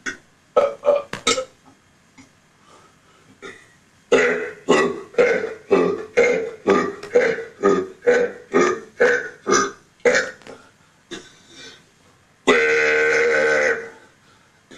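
A man burping: a few short burps, then a quick run of short burps at about three a second for some six seconds, and one long drawn-out burp near the end.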